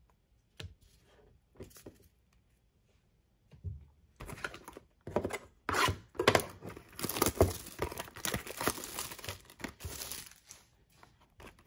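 A few light clicks, then from about four seconds in the crackling and tearing of plastic shrink wrap being slit and pulled off a sealed box of trading cards. The crackling stops about a second before the end.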